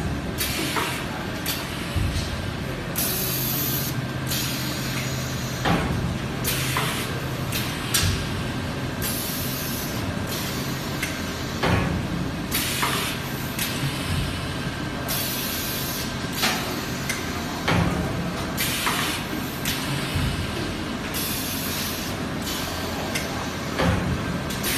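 Automatic high-frequency PVC welding machine running: its pneumatic cylinders hiss out air in repeated bursts, some short and some about a second long, with sharp clunks of the press and feed between them over a steady low hum.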